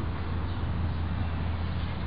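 Steady outdoor background noise: an even low rumble with a light hiss and no distinct sound standing out.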